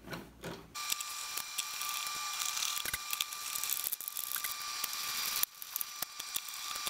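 Small screwdriver turning a screw into the tube tester's metal front panel: a rapid, uneven run of tiny clicks and thread scraping. It starts about a second in, breaks off briefly near the end, then picks up again.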